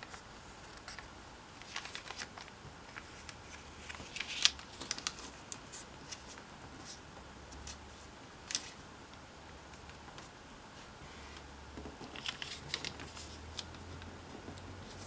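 Origami paper being folded and creased by hand: crisp crackles and rustles of the paper as the folds are pressed down. The sharpest crackles come about four and a half seconds in and near nine seconds, with a cluster around twelve to thirteen seconds.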